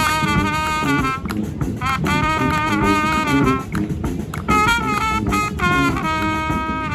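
Brass band playing live: the horns sound short phrases of held notes, about one a second or two, over steady drums and percussion.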